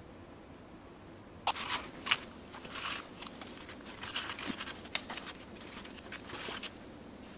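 Prestige Oro casting plaster being stirred in a plastic cup: an irregular run of scraping, scratching strokes with a few sharp clicks, starting about a second and a half in and stopping shortly before the end.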